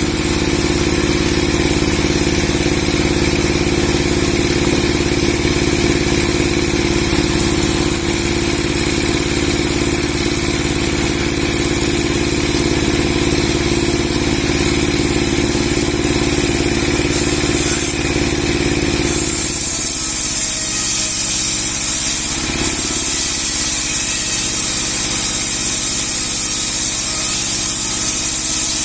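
Engine-driven log saw with a 60 cm steel blade, its 30 hp engine running steadily. About 19 s in, the low hum drops away and a high whine gets brighter.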